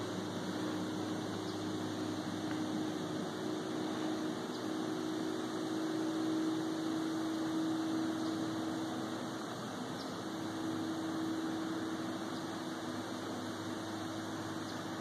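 A steady mechanical drone: a low hum that wavers slightly in pitch over an even hiss.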